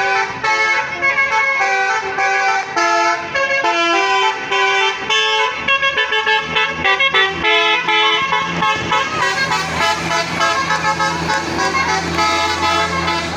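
Bus 'telolet' basuri multi-tone horn playing a quick tune of short stepped notes over and over. A deeper steady drone joins about six seconds in.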